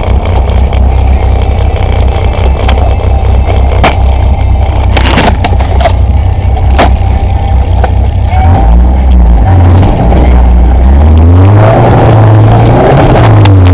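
A Dodge car with a loud exhaust drones at low revs. In the second half it accelerates, the engine pitch climbing and falling with the throttle. A few sharp clicks come through in the first half.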